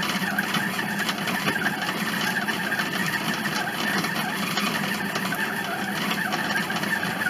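Monsieur Cuisine Connect food processor's motor running steadily in its kneading program, working bread dough in the bowl without pausing.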